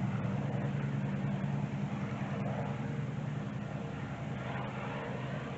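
Motorcycle engine running steadily at a low pitch, slowly fading as it rides away along the road.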